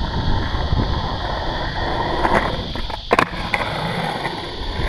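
Skateboard wheels rolling over rough concrete, with a quick double clack of the board about three seconds in.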